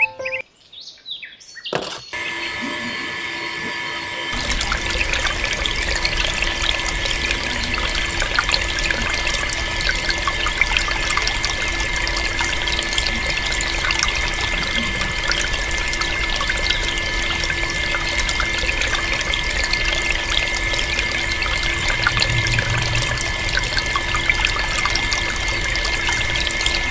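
Small DC motor water pump starting with a steady whine about two seconds in. A couple of seconds later the water from its pipe pours and splashes into a pool of water, running steadily with the whine underneath.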